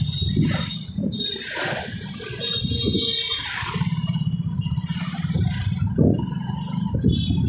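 Wind rushing and buffeting over the microphone on a moving motorcycle, over the steady running of the bike's engine and the surrounding street traffic.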